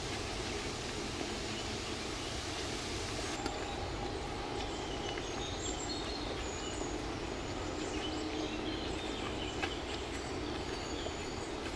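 Outdoor ambience of steady rushing noise with birds chirping now and then and a few faint clicks. The high hiss drops away about three and a half seconds in.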